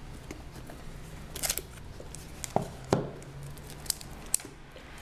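Hands handling a smartphone and its packaging: a short rustle about a second and a half in, then several sharp taps and clicks, two of them close together near the middle, over a steady low hum.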